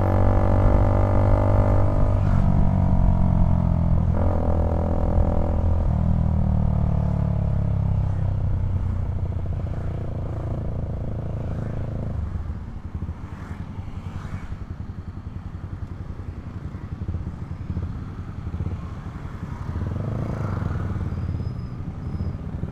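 Motorcycle engine running in slow traffic. For the first dozen seconds its pitch sags and picks up again in steps about every two seconds, then it drops to a quieter, low rumble.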